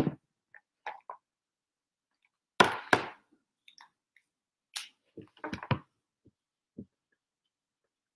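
Handling noise from a whiteboard marker and its cap: scattered light clicks and knocks. There is a short, louder rustling burst about three seconds in, and a cluster of duller knocks a little later.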